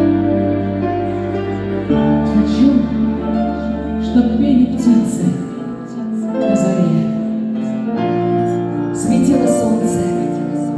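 A slow pop ballad played from a backing track, with sustained keyboard chords; a woman's voice sings a wavering melody over it from about two seconds in.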